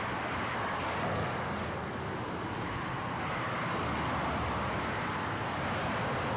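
Steady traffic noise from a busy multi-lane highway, many cars and trucks passing together, with gentle swells as vehicles go by. It is a sound level of 80 dBA at the roadside.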